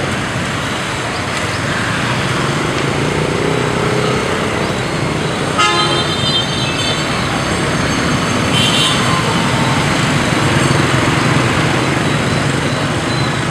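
Dense motor-scooter and motorbike traffic with some cars: a steady hum of many small engines passing close by. A short horn beep sounds about six seconds in, and a higher, shorter toot follows about three seconds later.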